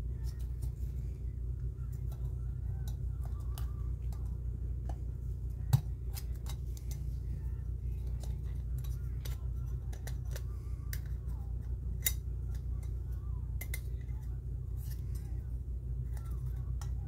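Small metal clicks and scrapes of a screwdriver prying the tabs and the thin metal shield of a 1977 Corvette dash clock, the sharpest click about six seconds in and another about twelve seconds in, over a steady low hum.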